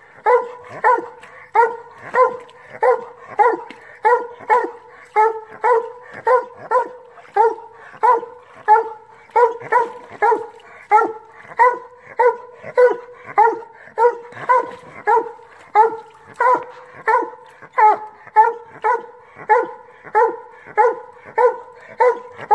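Black and tan coonhound barking up a tree in a steady, unbroken chop of about two barks a second: the tree bark of a hound that has treed its quarry.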